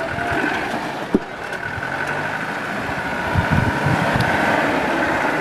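Off-road 4x4 vehicle's engine running as it works through a trial course, with a steady high whine over the engine noise and some low thumps near the middle.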